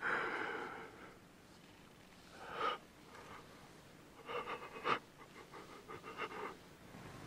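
A man's soft, breathy chuckling: a short breath about two and a half seconds in, then a run of quick, stuttering laughs.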